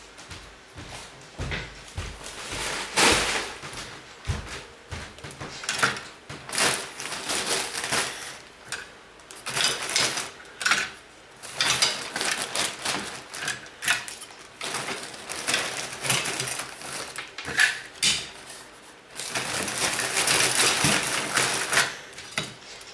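Plastic bags rustling and crinkling with light clattering, as clothes hangers are bundled and packed into bags. The rustling comes in irregular handfuls and is heaviest near the end.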